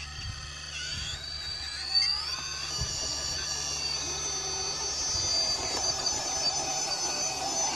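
Electric motor and gear drivetrain of an RC rock crawler whining as it climbs steep rock, the high whine rising in pitch between about one and two and a half seconds in and then holding steady. A sharp knock about two seconds in.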